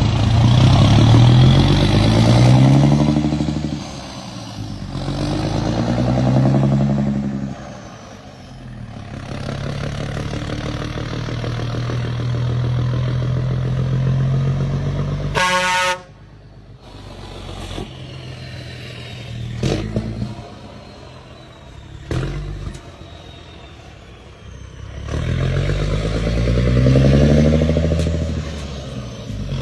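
Mercedes-Benz truck's V6 diesel engine revved up and let fall several times, held at steady revs for a few seconds, then dropping to a quieter idle with a couple of short blips before revving again near the end. A short horn blast sounds about halfway through.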